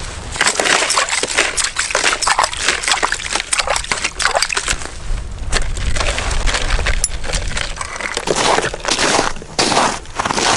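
Slotted ice scoop scraping and sloshing slush and water out of an ice-fishing hole, then footsteps crunching in snow near the end.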